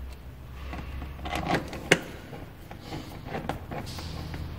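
Light clicks and taps of a screwdriver and a cap screw with its washer being started into a motorcycle's plastic trim, with one sharp click about two seconds in.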